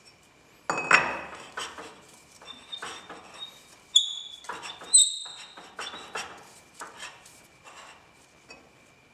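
A lathe chuck backing plate being fitted by hand onto the lathe spindle's taper: a series of metal-on-metal clinks and knocks, a few with a short high ring, the loudest about one, four and five seconds in. It is a trial fit of the backing plate's recut taper on the spindle nose.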